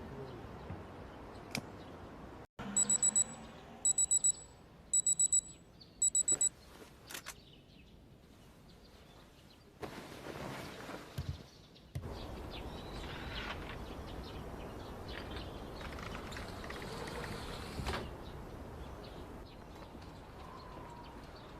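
Electronic alarm beeping: four quick groups of short, high-pitched beeps about a second apart, then it stops. Stretches of soft, uneven noise follow.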